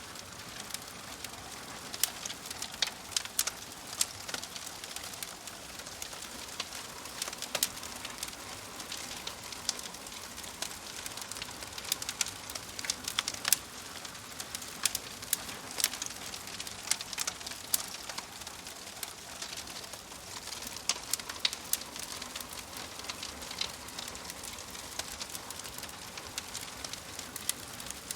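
Wood fire crackling in a fireplace: frequent sharp pops and snaps, irregularly spaced, over a steady soft hiss of burning logs.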